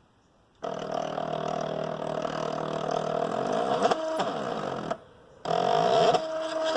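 SteppIR antenna element-housing stepper motor running under the controller's motor test, a pitched motor whine whose tones sweep up and down as the motor ramps its speed. One run of about four seconds, a short pause, then a second run of about two seconds.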